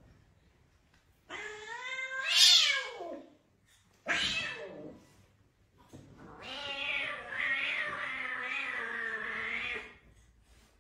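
Domestic cat yowling at a monkey that is pestering it, three times. The loudest call rises and falls about a second in. A short falling cry comes at about four seconds, and a long wavering yowl runs from about six seconds until shortly before the end.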